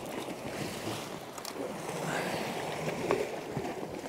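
Sea water washing and lapping against shoreline rocks, with wind on the microphone and a couple of faint knocks.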